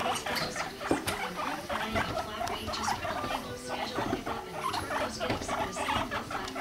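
Guinea pigs squeaking and chirping rapidly, with pattering and scrabbling of small feet on the cage floor as a boar chases a sow during courtship.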